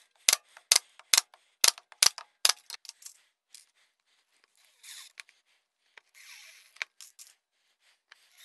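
Pneumatic 18-gauge pin nailer firing six pins in quick succession, about two a second, through plywood into a plastic strip. Later a cordless driver runs in two short bursts driving screws.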